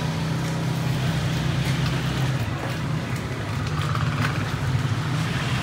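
A steady low engine hum with street noise around it, as of a motor vehicle running nearby, with a few faint clicks.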